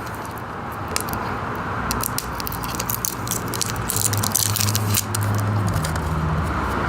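Crackling and rattling of a small eyeliner's cardboard and plastic packaging being opened by hand, many quick irregular clicks. A low steady hum sits beneath, stronger from about four seconds in.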